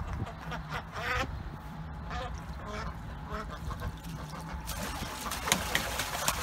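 Ducks quacking as they bathe in a plastic kiddie pool, with splashing water from about two-thirds of the way in.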